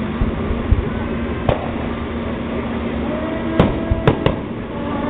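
Aerial firework shells bursting with sharp bangs, one about a second and a half in and three close together near the end, over a steady low hum.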